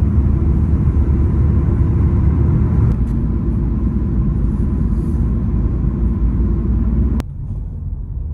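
Car cabin road and engine noise while driving at motorway speed: a steady low rumble. About seven seconds in it drops suddenly to a quieter low rumble as the car enters a car park at low speed.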